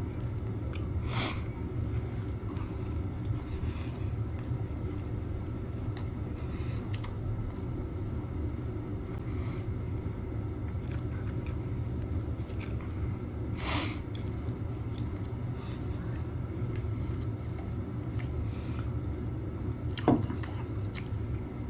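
A man eating a burger: knife and fork scraping and clicking on a paper tray, with chewing, over a steady low hum. A sharper knock about twenty seconds in as the cutlery is set down and a drinks can picked up.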